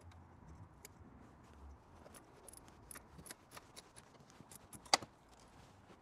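Faint, irregular light clicks and metallic taps of hand tools being handled, with one sharper click about five seconds in.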